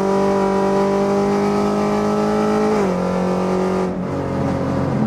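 Camaro engine and aftermarket AWE Track Edition exhaust pulling hard, heard from inside the cabin. The exhaust note climbs slowly, dips slightly about three seconds in, and then softens and turns rougher about a second later, as when the throttle is lifted.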